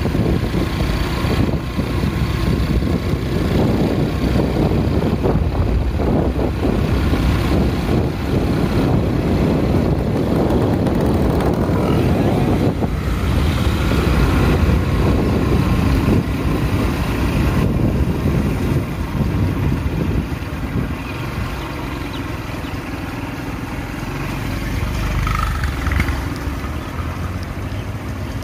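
Engine and road noise of a moving vehicle, a steady low rumble that gets quieter in the last third as the vehicle slows.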